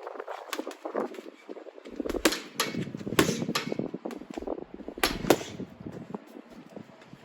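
Punches landing on a punch bag: quick runs of sharp slaps, the hardest coming in a flurry about two to three and a half seconds in and a pair about five seconds in.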